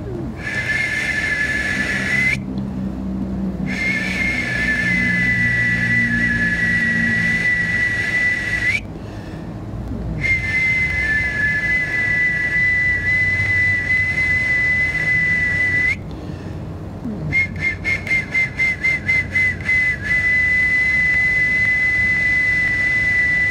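A high, two-toned whistle blown by mouth on a small handheld instrument, held in four long steady notes with short breath breaks between them; the last note starts with a quick fluttering pulse, about four or five beats a second, before holding steady. It is played as a counter-sound meant to weaken the listener's tinnitus.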